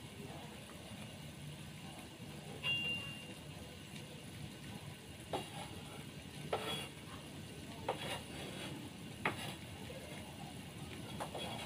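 Milkfish soup simmering in an aluminium wok: a low steady rumble of the boiling broth and stove, with about six sharp clicks scattered through it.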